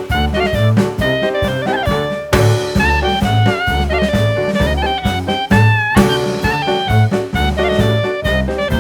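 Background music: an upbeat jazz/swing track with a steady bass beat and a melodic lead instrument.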